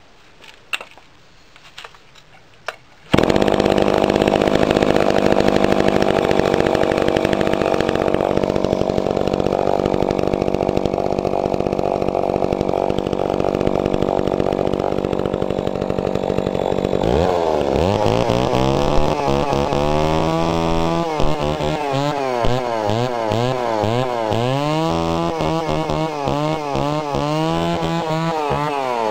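Echo Kioritz CS452VL 44cc two-stroke chainsaw starting after a few clicks, about three seconds in, then running at a steady speed. From a little past halfway it is revved up and down repeatedly.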